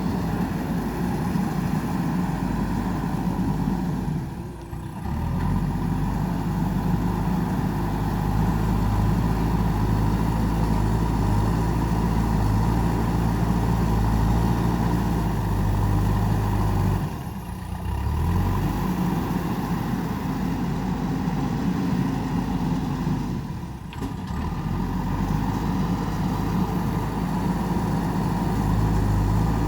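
JCB 3DX backhoe loader's diesel engine running steadily under work, with three brief dips in level.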